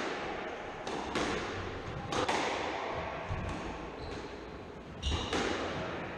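Squash rally: the rubber squash ball struck by rackets and smacking off the court walls, sharp cracks that come in close pairs a few tenths of a second apart and ring on in the hard-walled court.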